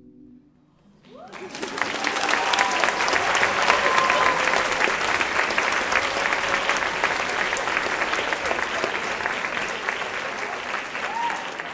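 Audience applauding and cheering at the end of a performance: clapping swells in about a second in and holds steady, with a few whoops over it, starting to die down near the end.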